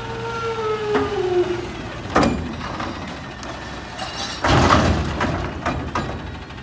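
Garbage truck's Curotto-Can arm cycling a recycling can over the cab: a whine from the truck's hydraulics that falls in pitch and fades in the first second and a half, then a sharp metal bang about two seconds in and a louder clattering crash around four and a half seconds in as the can and its load hit the hopper. A few smaller knocks follow.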